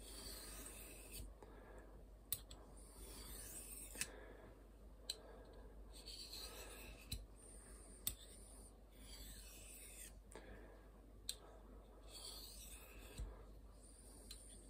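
Fallkniven F1's VG10 steel blade drawn along a white Triangle hone held in the hand: repeated soft, faint scraping strokes, each about a second long, with light clicks as the blade meets the stone. This is the fine polishing stage of sharpening the edge.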